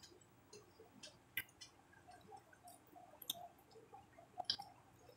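Faint eating sounds: a handful of scattered clicks and soft mouth smacks as someone chews and picks at a small whole fish with her fingers.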